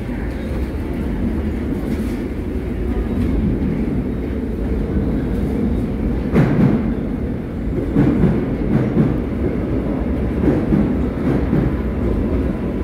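A Korail 311000-series electric subway train pulling into the platform behind glass platform screen doors, heard as a steady low rumble. From about six seconds in come heavy wheel thumps, a clickety-clack as its wheels cross rail joints.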